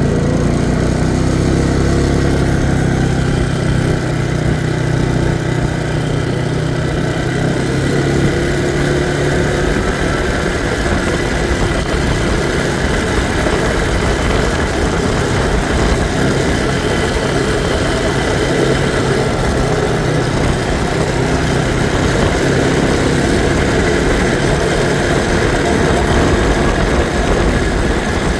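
ATV engine running steadily as it rides along. Its tone is clear for the first ten seconds or so, after which a steady rushing noise covers it.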